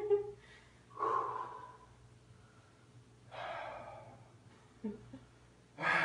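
Heavy breathing from people exerting themselves in an acroyoga balance: three loud exhalations about two and a half seconds apart, each fading over about a second.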